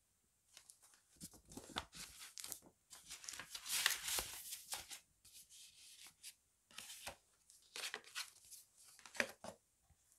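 Paper and thin card rustling and scraping as photo cards and a paper envelope are handled and slid back into a cardboard box, in short irregular bursts with a longer, louder rustle about four seconds in.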